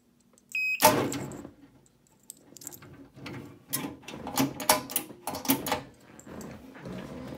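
An access-control keypad's reader gives one short beep as an RFID key fob is scanned. Just after, the cash drawer's lock releases and the drawer opens with a loud clack. A run of irregular clicks, knocks and rattles follows as the metal drawer is handled.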